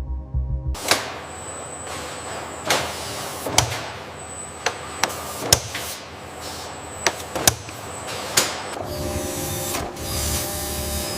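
Factory machinery running with a steady clatter and irregular sharp metallic clanks, over a faint high whine that comes and goes. About a second in it takes over from a low hum, and near the end it changes to a whirring.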